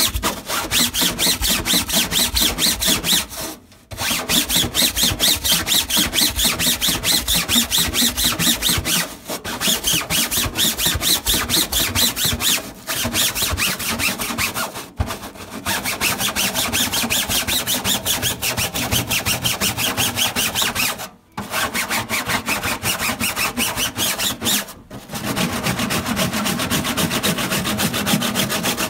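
An air-conditioner filter being scrubbed with rapid back-and-forth strokes, several a second. The strokes come in runs, with short breaks every few seconds.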